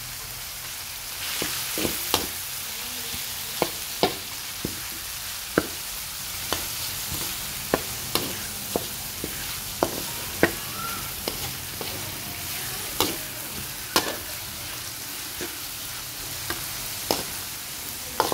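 Frog pieces sizzling in oil in a wok as they are stir-fried, with a metal spatula clinking and scraping against the pan about once a second.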